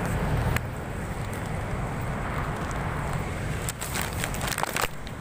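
Wind rumbling on a handheld phone's microphone over street traffic noise. The rumble eases off about half a second in, and a cluster of sharp clicks comes about four seconds in.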